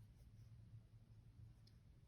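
Near silence: faint low room hum, with a single faint tick about 1.7 s in.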